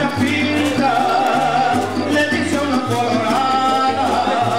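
Background music with singing over a bass line that steps from note to note about twice a second.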